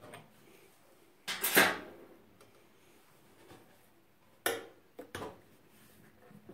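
Sheet-metal top cover of a NIBE Biawar Pellux 200 pellet boiler being worked loose by hand. A metallic scrape and clatter comes about a second in, then a few short sharp clicks of metal on metal near the end.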